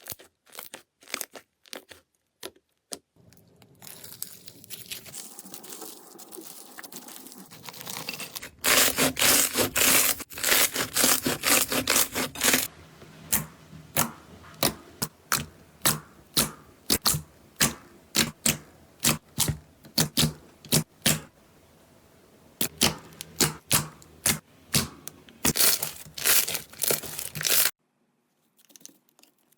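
Slime being squeezed and poked by hand, giving a run of sharp pops and crackling clicks. The pops are densest and loudest about nine to twelve seconds in, then come one by one and stop shortly before the end.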